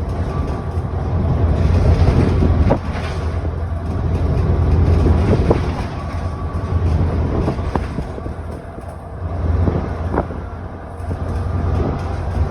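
ADL Enviro400 double-decker bus running on the road: a steady low engine and drivetrain drone that swells and falls, dropping suddenly about three seconds in, with several short sharp knocks or rattles.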